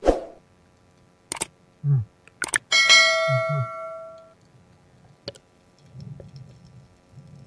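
Subscribe-button overlay sound effect: two quick mouse clicks, then a bell ding that rings out and fades over about a second and a half. A sharp hit opens it, and a few low muffled underwater knocks sound under it.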